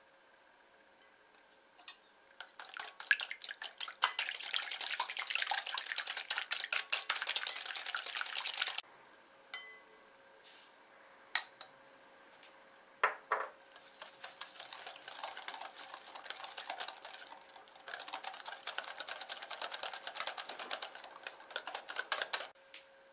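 Wire balloon whisk beating egg white in a glass bowl, the wires ticking rapidly against the glass. Two bouts of fast whisking a few seconds apart, with a few single clinks between; by the second bout granulated sugar is in the bowl.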